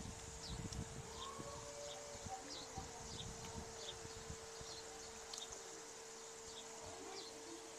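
Quiet outdoor background: a steady faint hum, with scattered short high chirps and soft clicks and rustles of people eating by hand from bowls.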